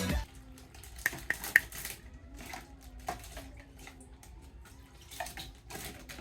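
Light clicks and taps of small plastic toy figures being handled, with a quick cluster of sharp clicks about a second in and scattered taps after.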